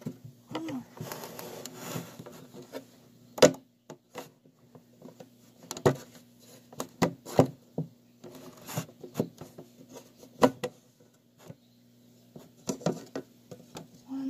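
Hands handling plastic containers and lids: irregular clicks and knocks, with a stretch of rustling from about half a second in. A low steady hum runs underneath.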